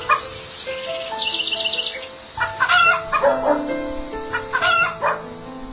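Chicken calls over background music with long held notes; short calls come around the middle and again near the end, with a quick rattling run of strokes early on.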